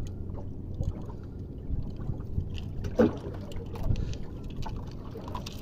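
Steady low rumble of a small fishing boat's engine running at idle, with light clicks as a hook and lure are worked free of a barracuda's mouth.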